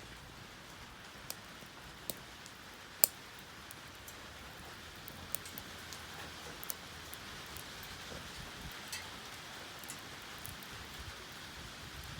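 Wood fire burning in a Solo Stove fire pit: a steady soft hiss with scattered sharp crackles and pops, the loudest about three seconds in.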